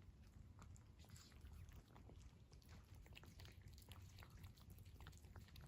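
Cat eating warm food: a steady run of faint, quick chewing clicks and smacks over a low rumble.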